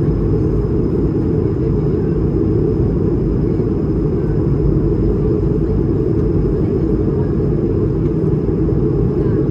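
Steady low rumble of an Airbus A220-300 jet airliner as heard inside the passenger cabin, with its Pratt & Whitney PW1500G turbofan engines running, and a faint steady high tone above the rumble.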